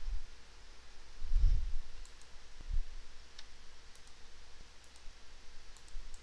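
Scattered light clicks, typical of a computer mouse being clicked at a desk, with a few dull low thumps, the loudest about one and a half seconds in, over faint room hiss.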